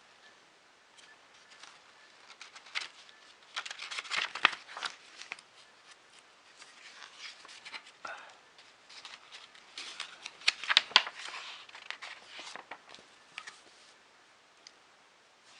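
Paper and packaging being handled: irregular bursts of rustling and small clicks, busiest about four seconds in and again around ten to eleven seconds in, typical of magazine pages being turned.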